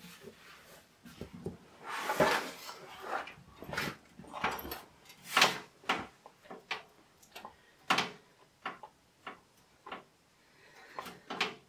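Handling noise from a metal 4U rack-mount computer case being gripped and moved by hand: irregular knocks, clunks and brief scrapes, a few of them louder.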